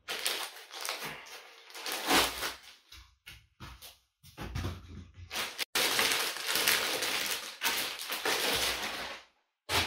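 Plastic packing sleeve crinkling and rustling as a laptop is pulled out of it, with foam packing pieces being handled and set aside. Patchy at first, then dense and louder over the last few seconds.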